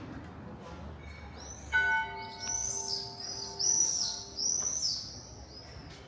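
A bell struck once, its ringing tone with several overtones fading over about three seconds. Throughout, birds call with short, high, repeated chirps.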